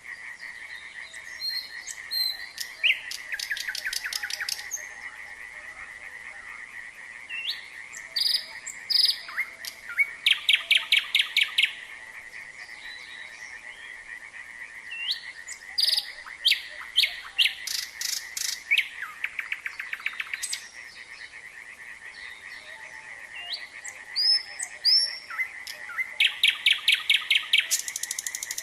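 A nightingale singing in phrases of rapid repeated notes, clicks and whistles, four phrases with short pauses between. Under it runs a continuous fast-trilling chorus of frogs.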